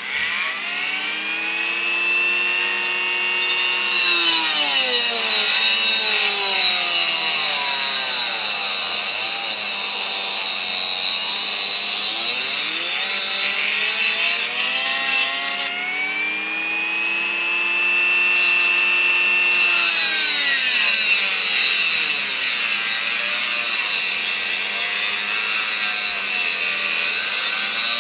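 Small rotary tool with a cutting wheel cutting through the stamped sheet metal of a hurricane oil lantern's burner opening. The motor's whine winds up, then drops in pitch and recovers several times as the wheel bites into the metal, over a steady high hiss of cutting.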